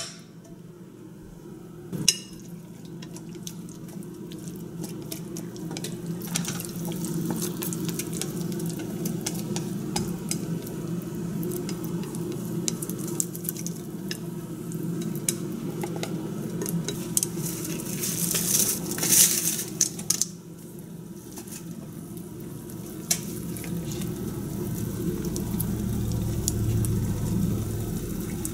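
Nonstick frying pan set down on an electric coil stove with two sharp knocks. Then okonomiyaki batter is scraped from a glass bowl with chopsticks into the hot pan and sizzles, with small clicks of chopsticks on glass and a louder hiss of sizzling about two-thirds of the way through.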